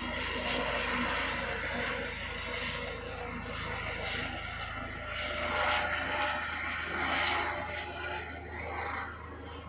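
Police aircraft flying overhead, its engine drone running steadily.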